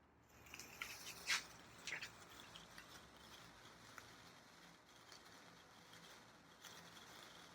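A handheld sparkler with a marshmallow pushed onto it catches and fizzes with a faint steady hiss and small crackles. It gives two sharper pops in the first two seconds.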